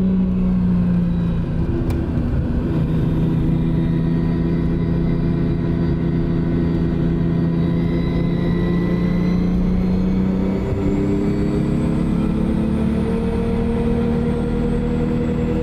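Turbocharged 1JZ-GTE inline-six engine of a car under way, running at a steady note that steps up in pitch about ten seconds in and keeps rising slowly as the revs climb. A faint high whine sits above it.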